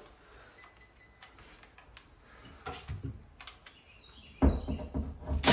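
A few faint clicks and handling noises, then about four seconds in a cordless drill starts up and runs, driving into the back of the vanity cabinet.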